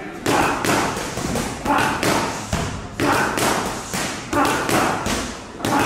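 Boxing gloves striking focus mitts during pad work: a series of sharp smacks, about one a second.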